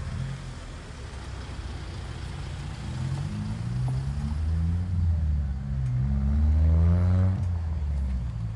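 A motor vehicle's engine rising in pitch and getting louder over about four seconds, as when a car accelerates away, then dropping off suddenly about seven seconds in, over a low rumble of wind on the microphone.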